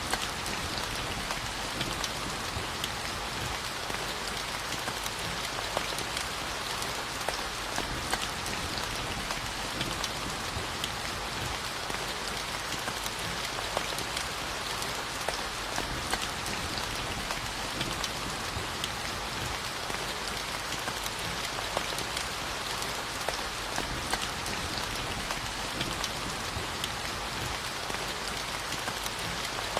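Steady rainfall, a continuous hiss with many individual drops pattering on a surface. There is no thunder.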